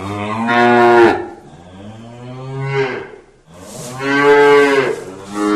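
A cow mooing: a series of long, drawn-out calls, one after another.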